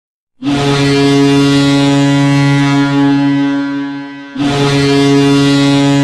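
Boston Bruins hockey goal horn sounding two long blasts of one steady low tone. The first starts about half a second in and fades out after about three and a half seconds; the second starts just after and holds on.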